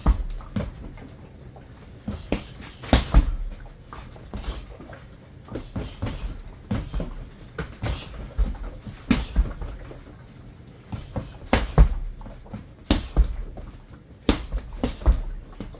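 Punches landing on a Century BOB XL freestanding punching dummy: dull thuds and slaps in quick flurries of several strikes, with short pauses between combinations.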